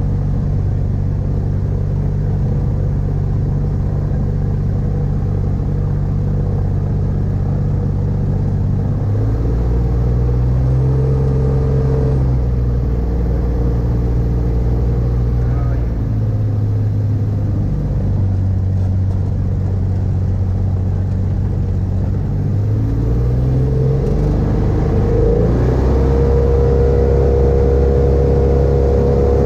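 Rotax 582 two-stroke engine of an X-Air 582 microlight running at low power while taxiing, heard from the open cockpit, its pitch stepping up and down with small throttle changes. About 25 seconds in it speeds up to a steady, higher note.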